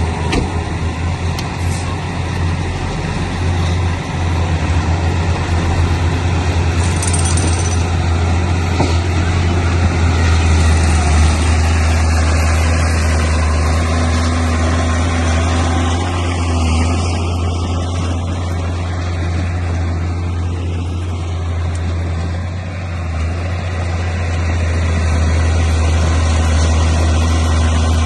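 Bulldozer's diesel engine running steadily, a constant low drone with a brief dip in level about three-quarters of the way through.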